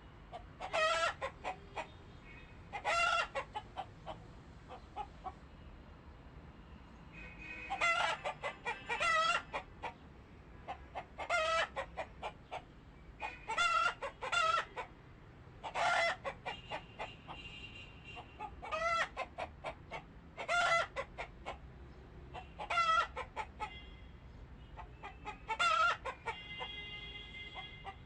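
Chickens calling loudly over and over, about one call every two seconds, each call wavering in pitch, with fainter high calls in between.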